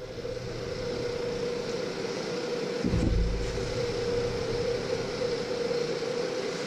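Bridgeport milling machine running with a fly cutter in the spindle, giving a steady pitched hum over an even whir. A short low thump comes about three seconds in.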